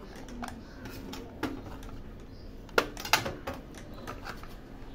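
12-gauge shotgun shells, brass heads and plastic hulls, clicking and clacking against each other and a metal tray as they are picked up and stood upright by hand. Irregular sharp clicks, the loudest two close together about three seconds in.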